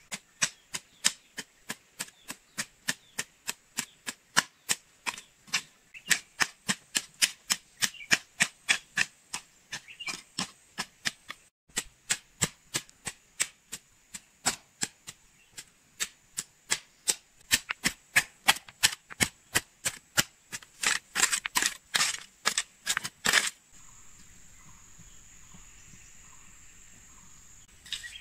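Hoe blade chopping into garden soil in steady repeated strokes, sharp strikes about two to three a second, with a brief break partway through. Near the end the strikes stop and only a faint steady high hiss remains.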